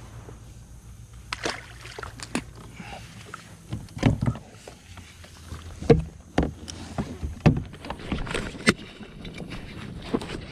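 Irregular knocks and clunks of fishing gear being handled in a fishing kayak, a fish-measuring board being put away among it, with several sharp knocks in the middle.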